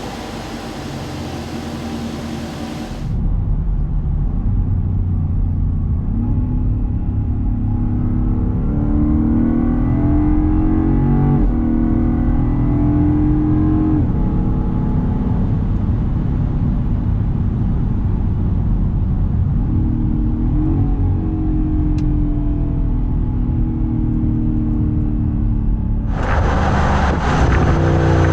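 Supercharged 5.0-litre V8 of a Land Rover Defender 110 running under way, its deep engine note rising in two long pulls. The sound changes abruptly about three seconds in and again near the end, where it turns brighter and louder as the engine pitch climbs.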